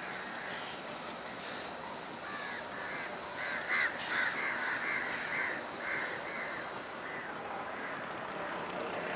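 Crows cawing, a quick run of about ten short caws in the middle, over steady background noise, with one sharp click partway through.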